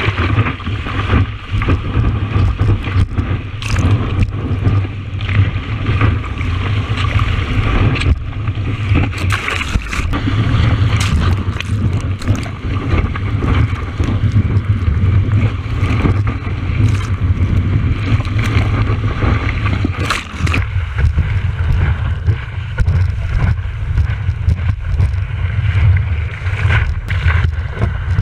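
Rushing and splashing water over a surfboard-mounted action camera as the board paddles into and rides a breaking wave, with heavy wind rumble on the microphone and sharp splash hits against the camera throughout.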